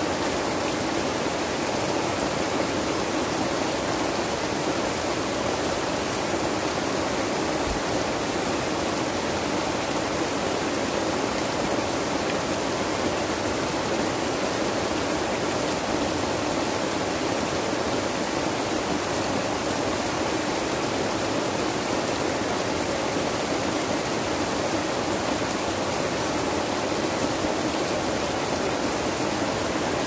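Heavy rain pouring down steadily, an even, unbroken hiss of falling water.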